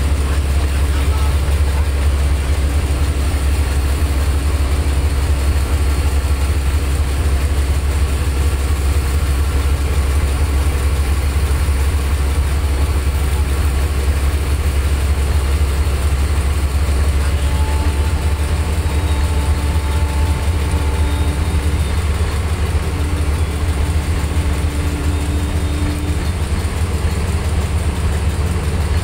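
Boat engine idling, a loud, steady low hum that does not change.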